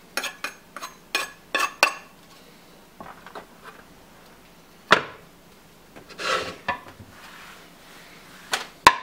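Kitchen knife tapping and scraping on a wooden cutting board in a quick run of sharp clicks as chopped basil is pushed off into a glass bowl, then a single sharp knock about five seconds in and a few more clicks near the end.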